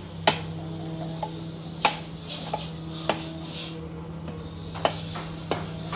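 A handful of sharp knocks and clatters, about five spread over a few seconds, over a steady low hum.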